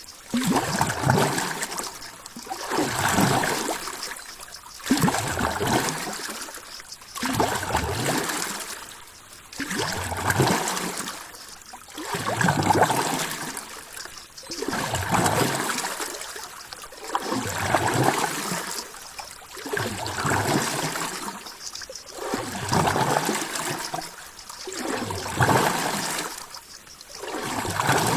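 Ocean water sloshing and lapping in regular surges, each swelling and ebbing about every two and a half seconds.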